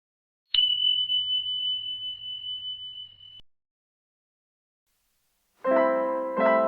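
A single high ringing tone, struck suddenly and held for about three seconds before it cuts off: an intro chime sound effect. Near the end, piano music starts.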